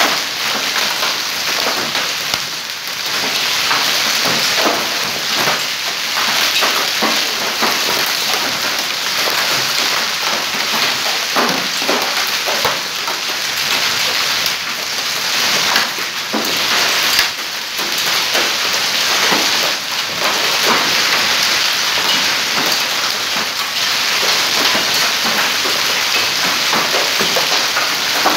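Hailstorm: hailstones and heavy rain beating down on a stone-paved courtyard, a dense steady hiss dotted with many small sharp hits.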